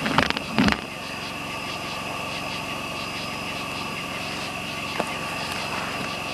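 Chicken wings cooking on a grill grate over wood coals, with a steady high-pitched background drone throughout. A few sharp knocks come in the first second, and a single click comes about five seconds in.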